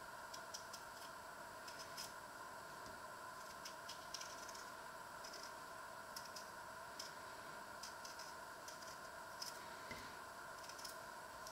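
Small kitchen knife paring the skin off a potato by hand: faint, irregular little clicks and scrapes as the blade cuts through the peel, about two a second, over a steady background hiss.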